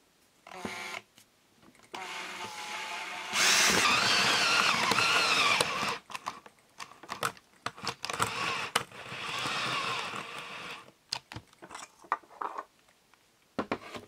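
Power drill with a hole saw cutting through the metal top of an old spray cream can. It runs in bursts, loudest for about two seconds with a wavering high whine, then shorter runs and clicks as the cut finishes.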